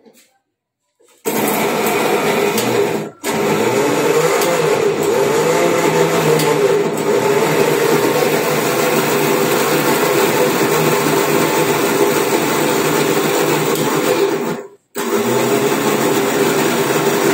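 Electric mixer grinder with a steel jar running loudly, grinding a wet green chutney of coriander, raw mango and green chillies. It starts about a second in, stops briefly twice (once after about two seconds, once after a long run of about eleven seconds), then runs again.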